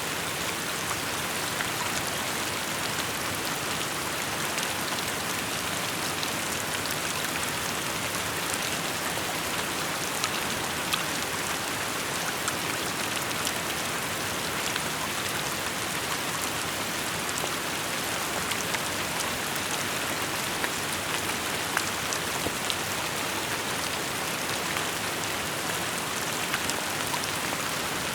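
Steady rain falling, an even hiss with scattered individual drop ticks.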